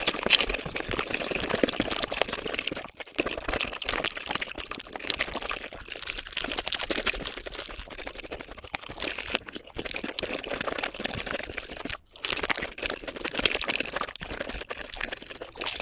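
Mukbang eating sounds played at five times speed: a dense, rapid run of wet chewing and slurping clicks, broken by brief gaps about 3 and 12 seconds in.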